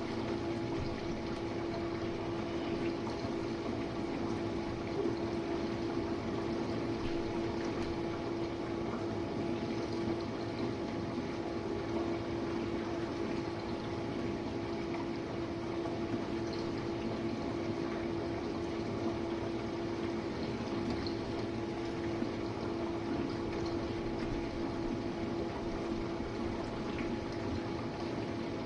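Jenn-Air dishwasher running a wash cycle: the steady hum of its pump motor under the even rush of water spraying inside the tub.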